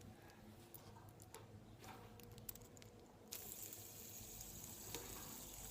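Faint light clicks and handling, then about three seconds in a steady faint hiss starts abruptly and carries on.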